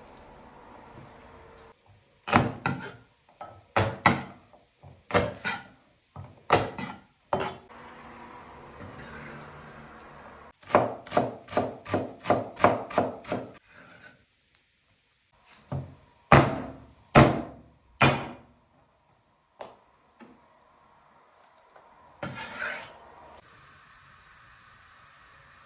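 Repeated short scraping strokes, about two a second, with a quicker run in the middle and a few louder strokes later on.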